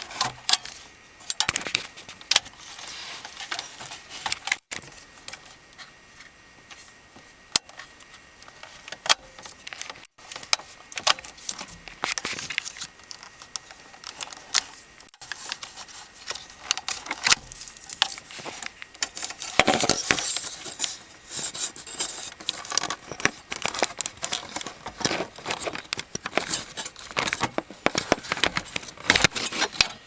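Irregular clicks, rattles and rustles of hands handling plastic dash trim and wiring harness connectors behind a 2001 Honda Civic's center console panel, with a jingle like a key ring. The sound cuts out abruptly a few times.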